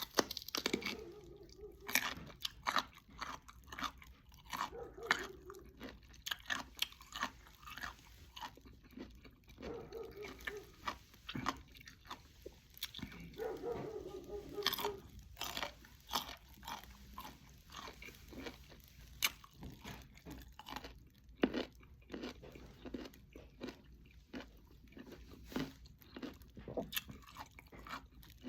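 Someone biting and chewing crisp green mango slices: repeated irregular crunches between stretches of chewing.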